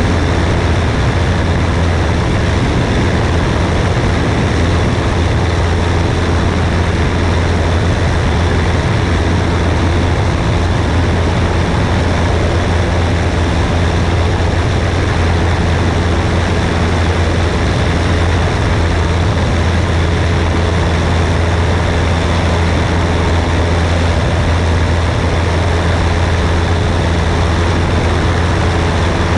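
Cessna 172S Skyhawk's four-cylinder Lycoming engine and propeller running steadily in flight as a deep, unchanging drone, mixed with wind rushing over the wing-mounted camera's microphone.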